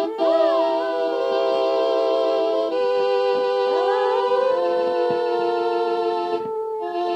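Rat terrier howling along to a slow hymn tune played in long held chords on an instrument. The dog's howls slide up and down in pitch over the steady notes, once about a second in and again around the middle.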